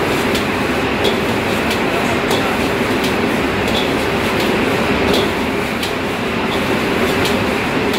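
Commercial gas wok burner running with a loud, steady rush of flame under a wok. A metal spatula and ladle scrape and clink against the wok about twice a second as fried rice is stir-fried.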